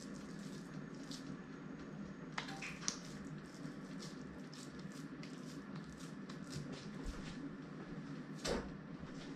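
Raw ground beef squished and pressed into a patty by hand, over faint crackling from beef patties frying in a hot skillet. About eight and a half seconds in, a patty is slapped into the pan with a sharper knock.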